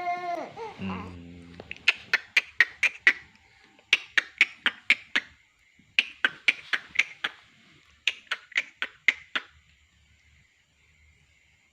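A baby's brief fussing cry, falling in pitch, then four quick runs of sharp clicking chirps, about eight clicks each, like a rapid chuckle.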